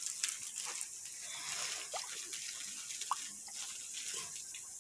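Faint dripping and small splashes of water at the surface of a tilapia pond, with a few light clicks scattered through.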